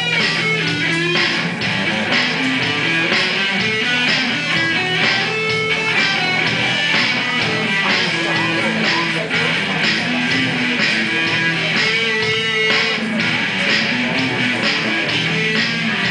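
A band playing a rock song live, led by electric guitar, over a low held note with a regular beat.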